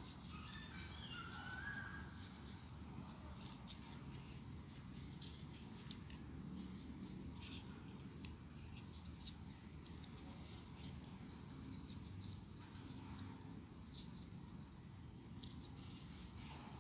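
Folded paper units of a 3D origami model rustling and clicking as they are pushed into place by hand: many short, crisp, uneven ticks and scratches.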